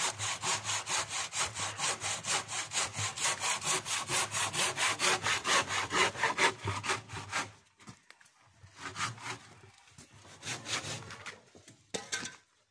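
Hand saw cutting through an old wooden board in quick, even strokes, about five a second. The strokes stop after about seven and a half seconds, followed by a few slower, scattered strokes.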